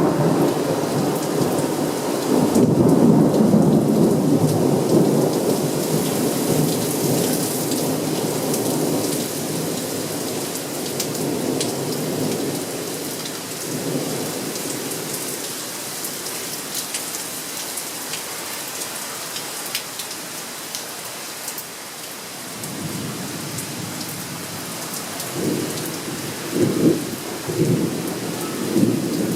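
Thunderstorm: steady rain falling, with rolling thunder. A long rumble fades over the first several seconds, and after a quieter stretch another roll of thunder builds about three-quarters through, with sharper claps near the end.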